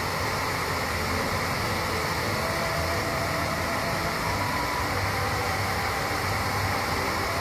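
Steady rush of water pouring over a wide, low dam spillway.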